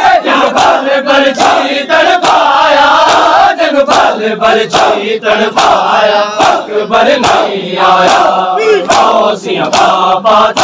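A crowd of men chanting a noha in unison. Under the chant runs a steady rhythm of open palms slapping bare chests (matam).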